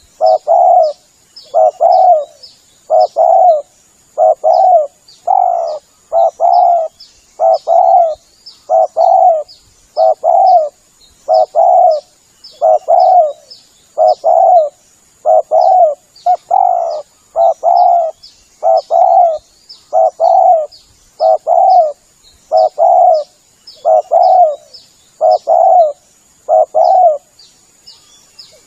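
Spotted dove (tekukur) cooing over and over, in phrases of two or three coos about every one and a half seconds, with faint high chirps of small birds behind.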